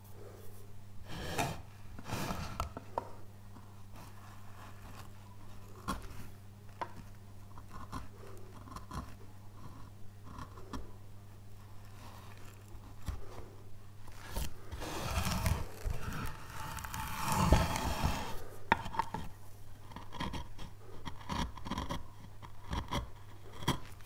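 Hand carving tool cutting and paring into a wooden relief: irregular scrapes and small clicks as the blade slices through the wood, with a denser, louder run of cuts about two-thirds of the way through.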